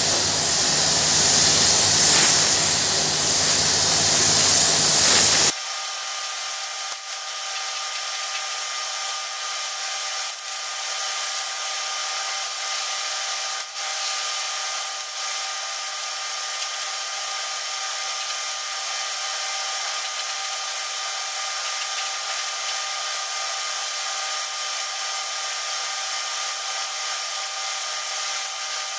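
Air spray gun hissing as clear coat is sprayed onto a car bumper. About five seconds in, the sound cuts abruptly to a thinner, steady hiss with a faint whine.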